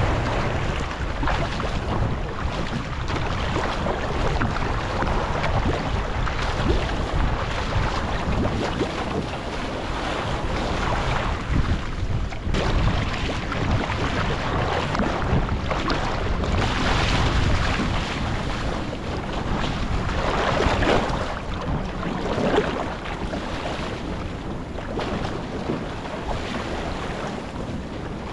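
Wind buffeting the microphone over water rushing and splashing along the hull of a paddled Kanuski outrigger-surfski hybrid, in uneven surges.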